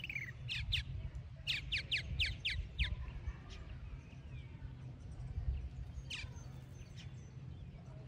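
Purple martins calling at their gourd nest house: a quick run of short downward-sweeping chirps in the first three seconds, then one more a little after six seconds.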